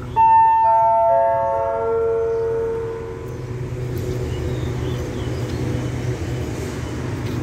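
Four-note descending chime over the station public-address system, each note ringing on and overlapping the next, the sign-off after a station announcement. Underneath, the standing train's engine hums steadily.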